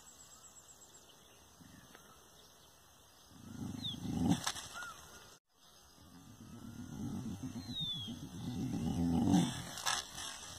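Dog growling low, in two stretches: a short one, then a longer one that builds. Birds chirp faintly behind.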